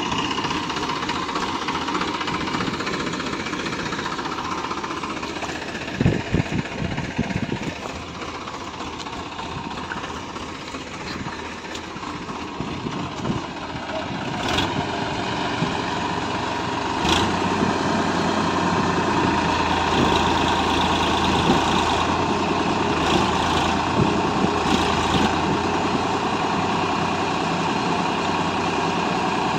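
Massey Ferguson 7250 DI tractor's three-cylinder diesel engine running under load as the tractor tries to pull out of deep mud. A short run of knocks comes about six seconds in. From a little past halfway the engine gets louder and holds a steady low note.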